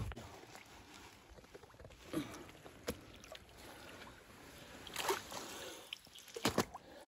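Lake water sloshing and splashing as a large carp is let out of a sling into the water and swims away, with the loudest splashes about five seconds in and again near the end.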